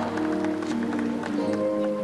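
Music with held notes and chords that change every half second or so.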